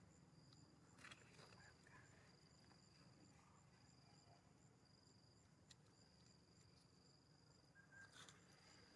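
Near silence: faint, steady, high-pitched insect chirping, with a couple of soft clicks.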